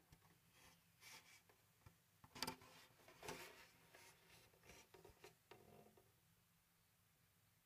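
Faint handling noise as a wooden Clemmer mountain dulcimer is turned over in the hands: a few light knocks and rubs against the wooden body, the loudest about two and a half seconds in.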